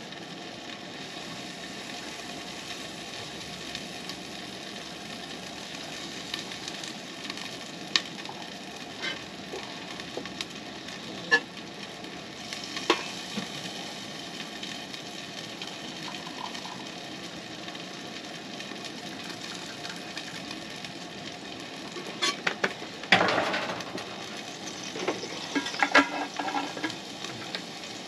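A steady hiss, with scattered light metal clinks as an aluminium stovetop percolator is handled and put together. There is a louder run of metal clattering about three-quarters of the way through, as the pot goes onto the propane camp stove.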